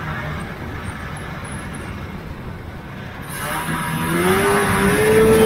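Vintage Polaris TX340 snowmobile's two-stroke engine running, then revving up about four seconds in and holding at higher revs, getting louder.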